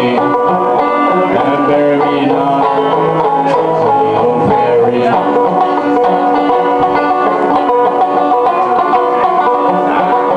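Two banjos playing together live, a steady instrumental passage of picked notes without singing.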